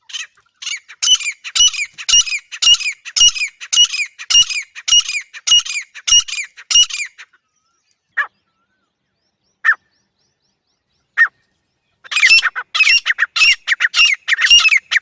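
Female grey francolin calling: a fast run of repeated notes, about two a second, then three single short notes spaced about a second and a half apart, then another, denser run of calls near the end.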